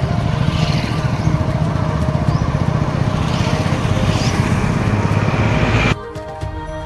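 Motorcycle engine running on the move, a steady rumble with road noise, which cuts off suddenly about six seconds in as background music comes back.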